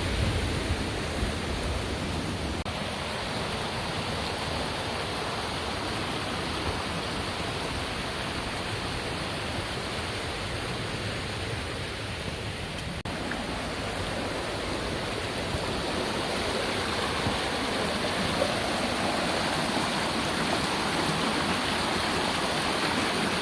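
A fast creek running high, rushing water heard as a steady noise, with a momentary break about halfway through.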